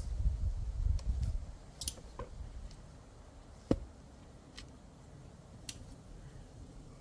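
A low muffled rumble over the first two seconds, then a handful of sharp, light knocks and clicks about a second apart, the loudest a little before the four-second mark.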